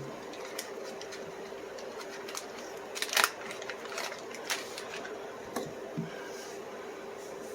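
Scattered sharp clicks and light handling noises of a folding pocketknife being wiped down with an oil cloth, the loudest pair of clicks about three seconds in, over a steady hum.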